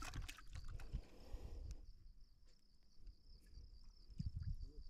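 Insects trilling steadily in a high, even tone, with faint rustles and soft low knocks of handling near the end.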